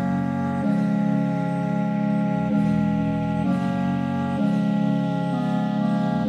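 Background music: held chords that change together every second or two, with no drum beat.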